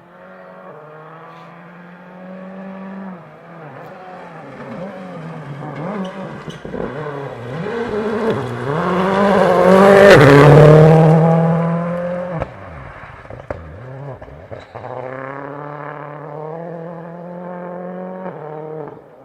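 A rally car at speed on a stage, its engine note climbing and dropping back with each gear change as it approaches. It passes loudest about ten seconds in, then runs on at a lower, steadier note as it moves away.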